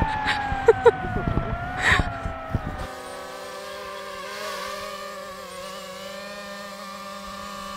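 DJI FPV drone's propellers whining, the pitch wavering a little as it flies, with a few sharp knocks in the first two seconds. About three seconds in the sound cuts to a quieter, steadier hum of several tones from the drone.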